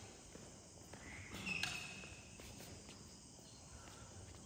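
Faint background noise of a large indoor sports hall, with a brief faint high-pitched squeak about a second and a half in.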